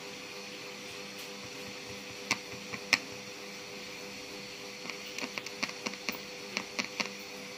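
Fingers tapping and pressing on a small homemade FM transmitter circuit board, making sharp clicks: two about three seconds in, then a quick run of them in the last few seconds. A steady hum runs underneath.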